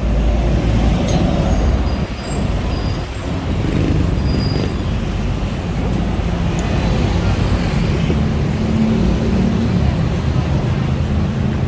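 Busy city road traffic: vehicle engines and tyres running steadily with a deep low rumble.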